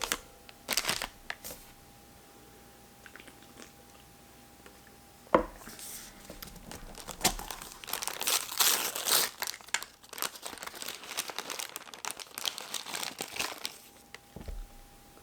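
Crinkling and rustling of a cookie wrapper being handled and opened, in a run of crackly bursts over the second half. A single sharp knock about five seconds in is the loudest sound, and there is a dull thump near the end.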